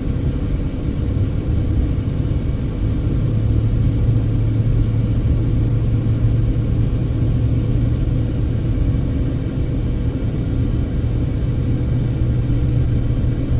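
Car engine and road noise heard from inside the cabin while driving a climbing mountain road: a steady low drone that grows a little stronger about four seconds in.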